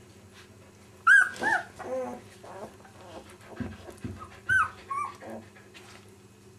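A dog yelping: two quick groups of short, high-pitched yelps, the first about a second in and the second about four and a half seconds in, with a couple of low bumps between them.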